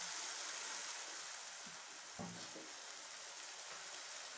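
Tomato, onion and potato masala sizzling softly in oil in a pan on a flame just turned to low, easing off a little over the first two seconds. A steel ladle stirs through it and knocks once against the pan about two seconds in.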